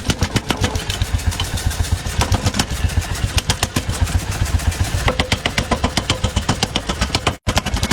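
Mechanical power hammer forging hot steel: rapid, evenly spaced blows, several a second, over the steady hum of its motor, with a brief break near the end.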